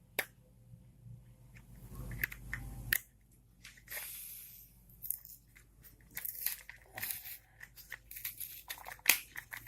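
Plastic crinkling and tearing, with a few sharp clicks, from hands handling parts during a laptop RAM upgrade. The clicks come about a second and three seconds in and near the end, with a rustling stretch in the middle and scattered crackles after.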